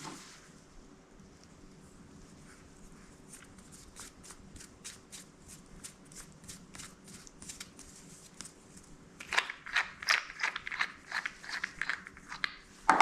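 A series of small clicks, then a louder, quicker run of scratchy clicks and creaks in the last few seconds: a threaded bottle-stopper stud being screwed by hand into a tight-fitting hole in a wooden blank during glue-up.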